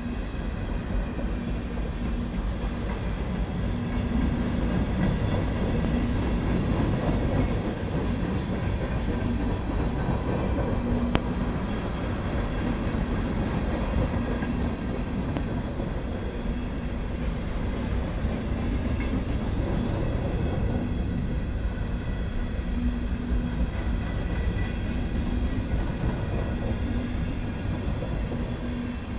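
Manifest freight train's cars (covered hoppers, tank cars and boxcars) rolling steadily past on the rails: a continuous rumble of wheels with a steady low hum, and a single sharp click about eleven seconds in.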